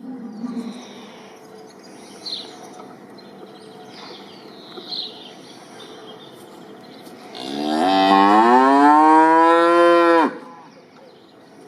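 A cow mooing once, a single long call of about three seconds that starts about seven seconds in, rises in pitch, holds, and cuts off suddenly. Before it, only a faint background with a few short high chirps.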